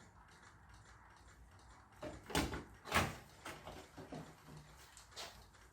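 A handful of light clicks and knocks from the wiring inside an opened LCD television being handled. They start about two seconds in, and the loudest come around two and a half and three seconds in.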